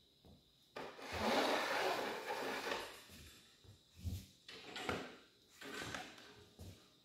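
A wooden board scraping and rubbing as it is slid along a work table, a long scrape about a second in, then several short knocks and scrapes as it is handled.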